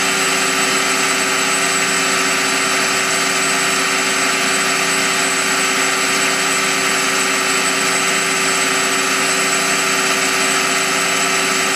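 Citizen L16 CNC Swiss-type lathe's main spindle running free at about 3,000 rpm, a steady whine made of several tones over a hiss.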